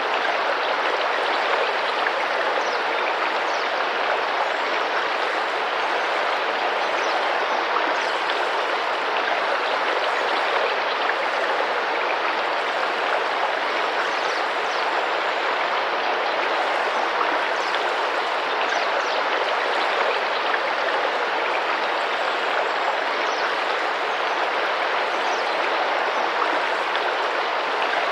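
Tropical rainforest river flowing and splashing in a steady rush, with faint high chirps now and then.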